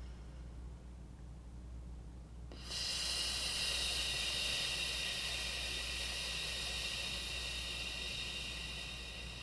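A person's long, controlled exhale on an "F" consonant: a steady "fff" hiss that starts abruptly about two and a half seconds in and slowly tapers off near the end, as breath support runs out.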